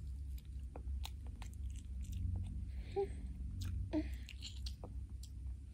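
An 11-month-old baby chewing and biting on a broccoli floret: small wet mouth clicks and smacks. Two brief vocal hums come from her about three and four seconds in.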